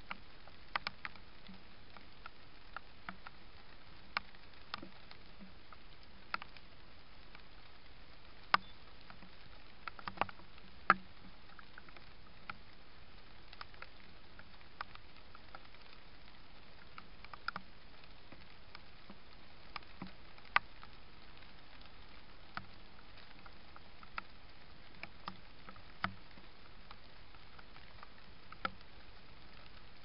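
Scattered, irregular sharp clicks and soft rustles of a European hedgehog foraging in straw, a few louder clicks about eight to eleven seconds in and again near twenty seconds, over the steady hiss of a trail camera's microphone.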